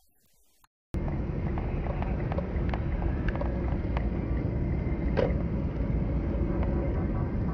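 Steady road and engine rumble of a moving car heard from inside the cabin by a dashcam, starting abruptly about a second in, with a few light clicks scattered through it.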